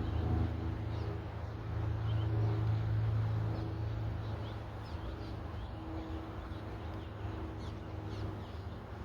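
Low, steady hum of a motor vehicle's engine, swelling about two to three seconds in and then fading, with faint bird chirps over it.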